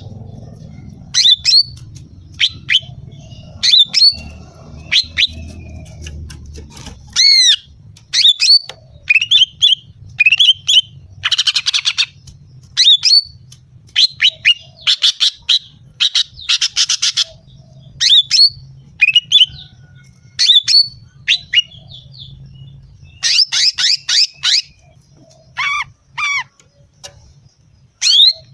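Female green leafbird (cucak ijo) calling in irregular bursts: short, sharp whistled chirps and sweeping notes, mixed with a few harsh, buzzy rattles. This is the female call that keepers play to provoke males. A faint low rumble runs underneath.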